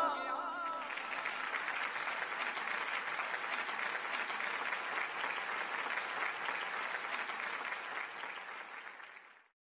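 A small crowd clapping steadily, fading out near the end.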